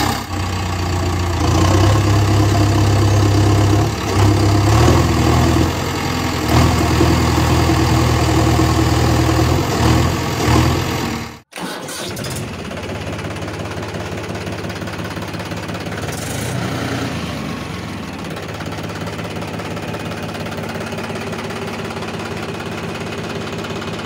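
Engine sound effect: an engine running with repeated surges in revs for about half the time, then after an abrupt cut a steadier, quieter engine idle.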